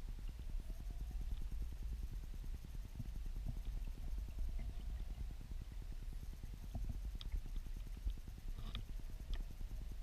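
Muffled low rumble of weir water churning, heard underwater, with a fast fluttering texture. A few faint clicks come near the end.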